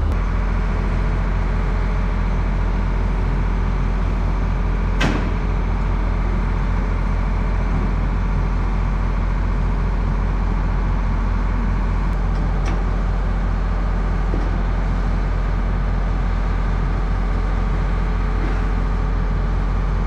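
Diesel engine of a New Holland wheel loader running at a steady idle, with an even, throbbing low rumble.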